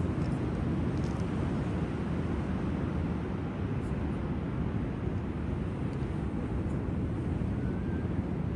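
Steady low rumble of sea surf and wind on the microphone, even throughout with no distinct events.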